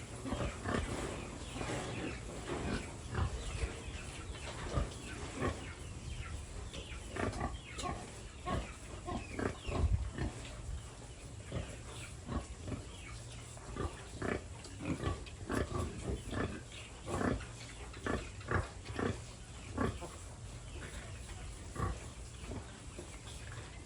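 Pigs grunting and squealing in many short, separate calls, one or two a second, over a low steady hum.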